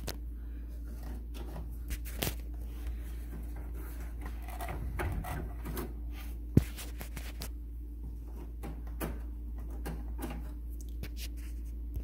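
Hands working among the wiring harness and plastic parts inside a microwave, making scattered small clicks and rattles, with one sharper click about six and a half seconds in, over a steady low hum.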